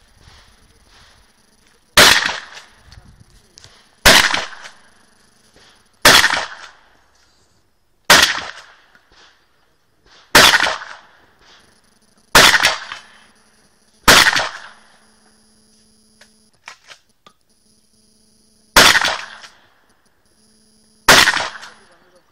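Shotgun fired nine times at a steady pace of about one shot every two seconds, with a longer pause before the last two shots; each loud blast is followed by a short echo.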